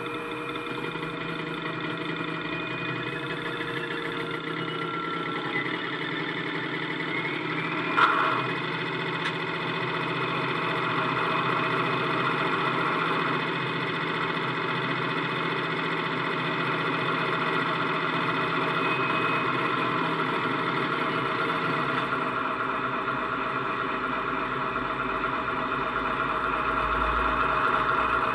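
Class 70 diesel locomotive engine sound, the GE PowerHaul V16, played by a Coastal DCC sound decoder through the small EM1 speaker in a Bachmann model, idling steadily while the model stands still. There is a sharp click about eight seconds in, and the sound grows a little louder from about ten seconds.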